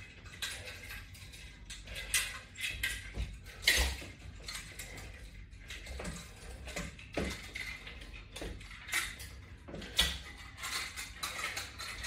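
Metal clips and hooks of resistance bands and latch bar attachments clinking and clicking irregularly as the equipment is handled and swapped, with an occasional louder knock.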